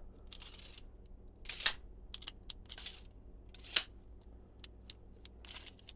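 Tape measure being handled: a series of short clicks and light scrapes from its case and lock button, the loudest about a second and a half in and again near four seconds.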